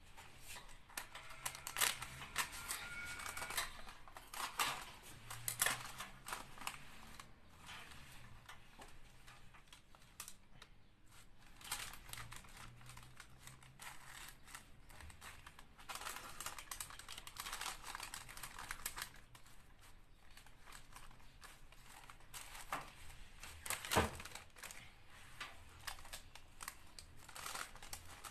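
Baking parchment paper crinkling and rustling in irregular bursts as it is handled and pressed around a square metal baking frame, with one sharp tap about three quarters of the way through.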